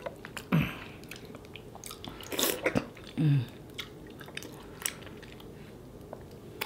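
Close-miked eating sounds of soft fufu dipped in egusi soup: a few separate wet mouth noises and chewing, the clearest about half a second, two and a half and three seconds in.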